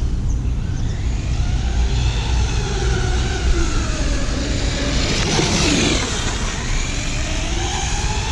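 Radio-controlled monster truck running, its electric motor whining and rising and falling in pitch as the throttle is worked. About five seconds in it gets louder with a rush of motor and tyres, the pitch dropping as it goes by close.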